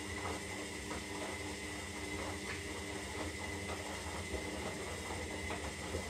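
Zanussi Lindo 300 washing machine running steadily partway through its synthetic wash cycle: a continuous mechanical hum with a high whine over it and faint irregular ticks.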